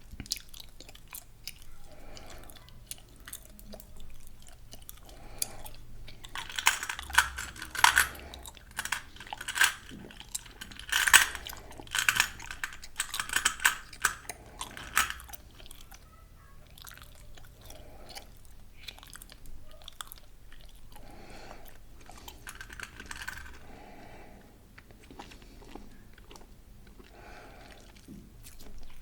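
Gum being chewed, with many quick mouth clicks. They come thickest and loudest for several seconds in the middle stretch and are sparser before and after.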